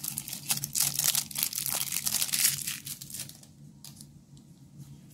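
Thin clear plastic wrap crinkling and tearing as a stack of trading cards is pulled out of it by hand: a dense crackle for about three seconds, then only a few faint rustles.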